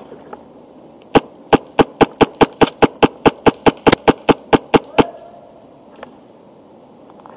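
HPA airsoft rifle with a Wolverine Inferno Gen 2 engine firing a rapid string of about eighteen sharp, loud shots over four seconds, roughly five a second.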